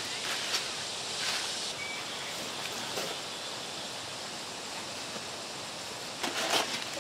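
Steady outdoor hiss with a few short rustles, the loudest pair about six seconds in.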